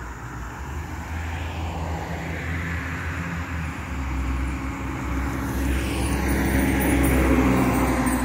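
Fire truck's engine and tyres drawing near and passing, with a low engine hum under a tyre rush. It grows steadily louder to a peak about seven seconds in, and the rush drops in pitch as it goes by.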